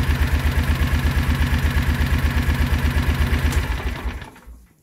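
Kawasaki Mule 4010 engine idling with an even, rapid pulse on its first run after a fresh oil and filter change, which fills the new filter with oil. It winds down and stops about four seconds in as it is shut off.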